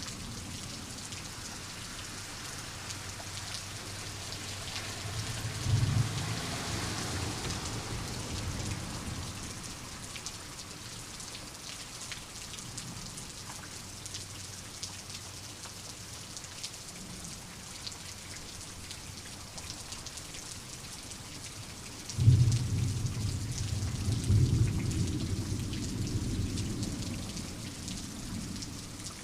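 Thunderstorm: steady rain with individual drops ticking. Thunder rolls about six seconds in and rumbles for a few seconds. A louder thunderclap hits suddenly about twenty-two seconds in and rumbles on for some five seconds.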